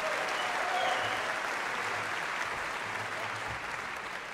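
Concert hall audience applauding a big-band jazz performance. The applause begins to die down near the end.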